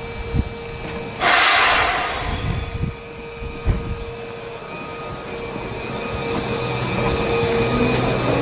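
Jōmō Electric Railway 700-series electric train at a station: a sudden loud hiss of released compressed air about a second in, fading away over a second or so, then the train pulling away with its motor whine beginning to rise near the end.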